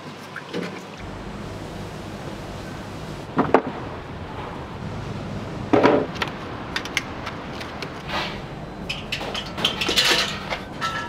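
Knocks and clunks of metal-framed stools being moved and set down on a hard floor, the loudest about six seconds in. A run of lighter metallic rattles follows near the end as a metal wire-grid stand is handled. A steady low hum runs underneath.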